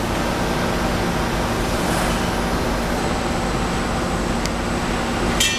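Amada HFE 1303 CNC press brake running with a steady machine hum and a constant low tone while a small sheet-metal part is bent. A single sharp metallic clink comes near the end.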